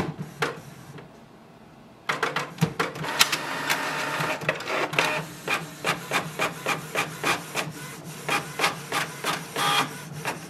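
Canon PIXMA MG3620 inkjet all-in-one running a copy job. A few clicks come first, then from about two seconds in the paper feed and print-head carriage run with a steady hum and a rapid series of clicks as the page is printed and fed out.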